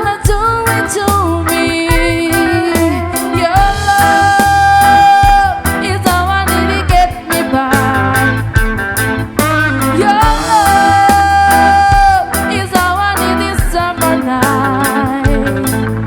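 Reggae band playing: a steady bass line under a lead melody with two long held notes.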